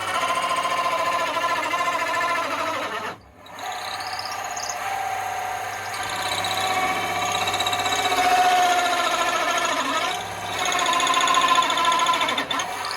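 Electric drill running as it bores a hole in wood, its motor whine steady under load. It cuts out briefly about three seconds in and dips again just after ten seconds.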